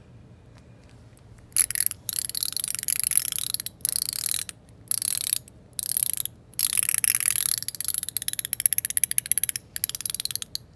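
ACEdc Star Core haptic coin clicking rapidly as it is worked, in several long runs of dense clicks with short pauses, starting about one and a half seconds in. Its magnets have just been reset slightly off center, which makes it a much stronger haptic coin.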